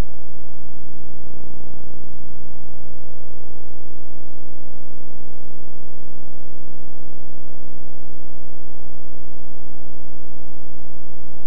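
Loud, steady electrical hum with a buzzy stack of overtones, unchanging throughout, with no game sound over it: the hum of an old videotape transfer.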